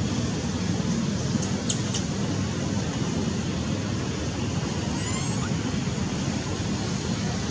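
Steady outdoor rumble and hiss at an even level, with a few faint, brief high chirps about two seconds in and a faint falling chirp about five seconds in.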